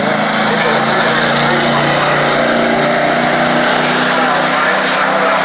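A race vehicle's engine running loudly at a steady pitch.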